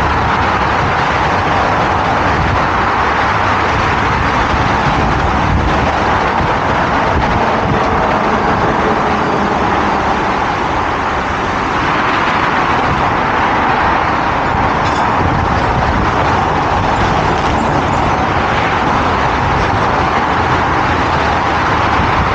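Steady noise of heavy road vehicles running, with a slight dip about eleven seconds in.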